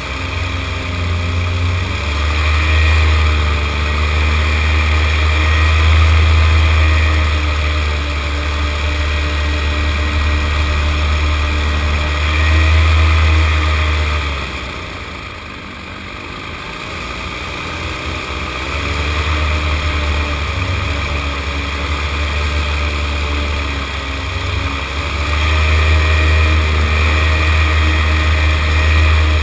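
Paramotor engine and propeller running steadily in flight, throttled back for a few seconds about halfway through, then powered up again.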